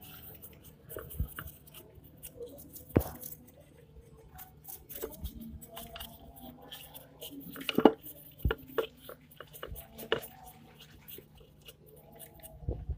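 Scattered clicks, taps and light scraping of hand work on a scooter's crankcase while the crankshaft oil-seal area is cleaned with petrol. A sharp knock comes about three seconds in, and a cluster of louder knocks around eight seconds in.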